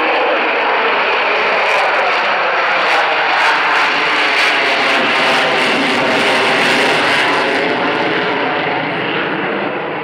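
Avro Vulcan's four Rolls-Royce Olympus 202 turbojets running loud and steady as the bomber pulls into a spiral climb. The jet noise swells with a faint crackle in the middle and eases slightly near the end.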